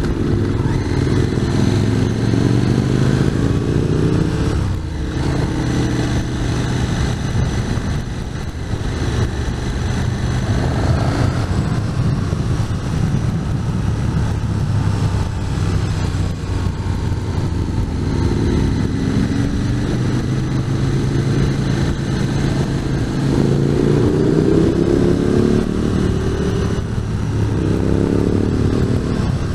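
Motorcycle engine heard from on board while riding, pulling up through the revs several times with brief drops in between, as on gear changes or rolling off the throttle.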